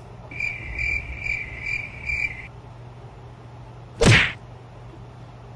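Cricket chirping used as an awkward-silence sound effect: about five evenly spaced chirps over two seconds, cutting off abruptly. About four seconds in comes a single short whoosh falling in pitch, the loudest sound here.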